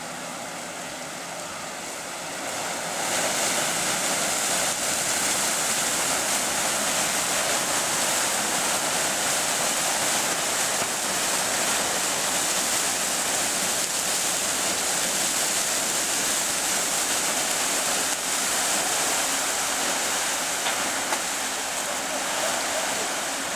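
Paddle steamer Uri's paddle wheels churning the lake water alongside the landing stage: a steady rushing of water that grows louder about three seconds in.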